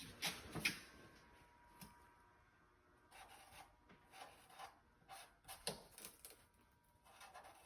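Pen or marker scratching on paper in short strokes, with a few light knocks in the first second.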